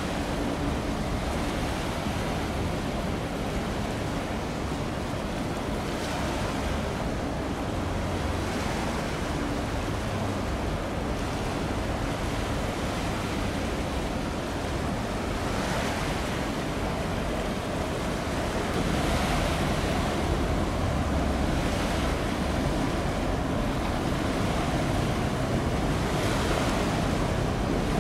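Steady rush of wind and water, with wind gusting on the microphone now and then. It gets slightly louder a little past halfway.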